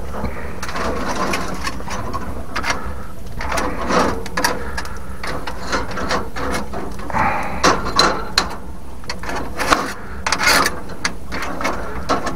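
Irregular knocks and clacks with short bursts of scraping, as wood, embers and stones are shifted about at a wood-fire grill, over a steady low rumble.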